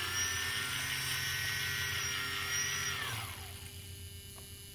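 Tricopter's brushless motors running with a steady high whine, then spinning down about three seconds in as the craft is disarmed, leaving a low electrical hum.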